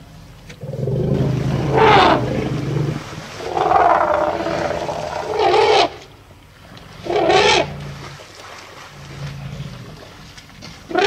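Loud wild animal calls during an African elephant's charge at a spotted hyena. They come in four bursts: about two seconds in, from about four to six seconds, around seven and a half seconds, and at the very end. A low steady hum runs beneath them.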